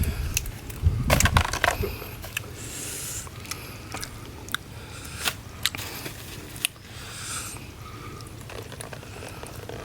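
Raw field crab shells cracking and crunching as they are bitten and broken apart: irregular sharp cracks and clicks, loudest in a cluster about a second in.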